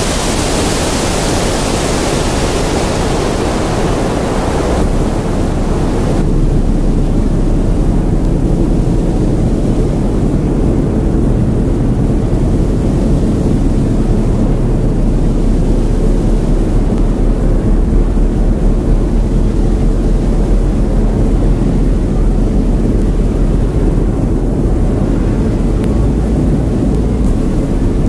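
Steady, dense noise drone. The hiss on top drops away in two steps about five and six seconds in, leaving a low rumble.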